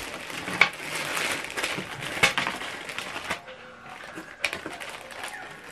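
Plastic packaging bag crinkling as cables are handled and pulled out, with a few sharp clicks and knocks. The rustling is busiest for about the first three seconds, then dies down to a few light clicks.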